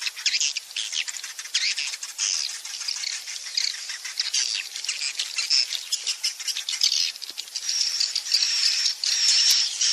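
Swiftlet calls: a dense chatter of quick, high twittering chirps and clicks, from a swiftlet-house roosting lure recording ('suara inap') meant to make young swiftlets settle. From about seven and a half seconds in, a steadier high buzzing twitter comes to the front.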